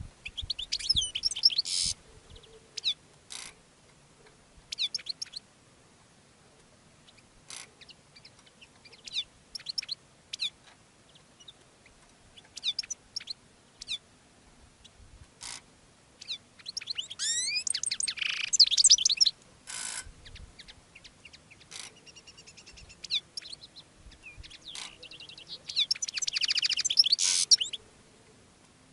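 Male European goldfinch singing its courtship song to a female: bursts of quick twittering notes that sweep up and down, with single sharp call notes and short pauses between, the longest phrases about halfway through and near the end.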